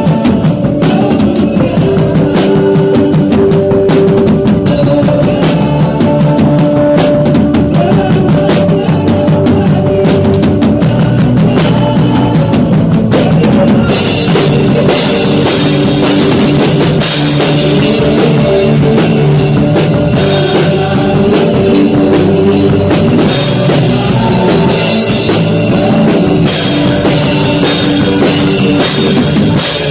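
Acoustic drum kit playing a steady rock beat with a live band of keyboard, electric guitar and bass guitar. About 14 seconds in the cymbals come in and the sound turns much brighter.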